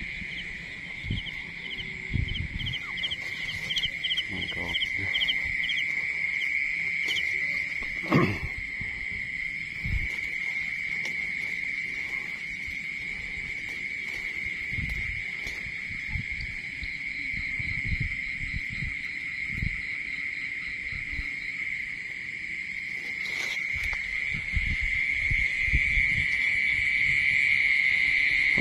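A steady, high-pitched chorus of insects trilling, with a faster pulsed chirping above it for the first several seconds. Irregular low thuds run beneath, and a sharp knock sounds about eight seconds in.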